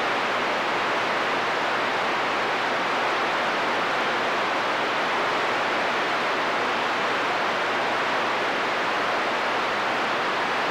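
CB radio static: a steady hiss from the receiver between transmissions, with no voice on the channel.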